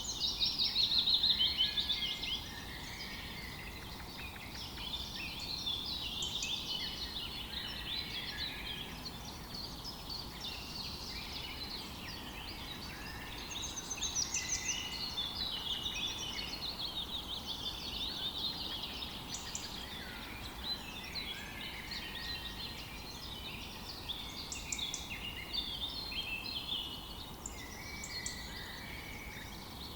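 Many small birds chirping and singing at once in a continuous, overlapping dawn-chorus-like mix of quick high chirps and trills, loudest for the first couple of seconds.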